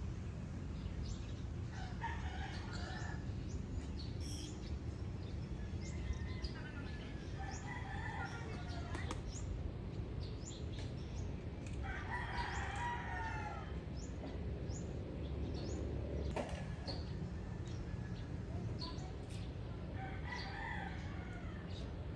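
Rooster crowing four times, each crow lasting one to two seconds, over a steady low rumble, with small birds chirping throughout.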